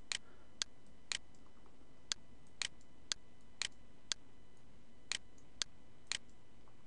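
Sharp clicks at an even pace of about two a second, with a few beats skipped, over a faint steady hiss.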